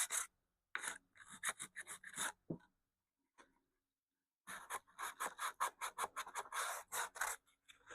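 Sandpaper rubbed by hand along a wooden radio-cabinet rail in quick back-and-forth strokes, using a heavier, coarser grit. The strokes stop for about two seconds midway, then start again.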